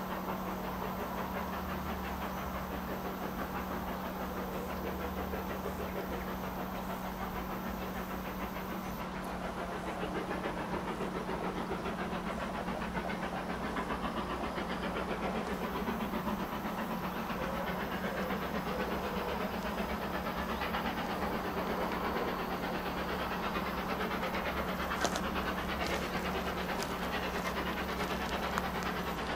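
A steam locomotive working unseen in the distance, its exhaust heard as a steady rushing that grows slightly louder as it approaches. A few sharp clicks come near the end.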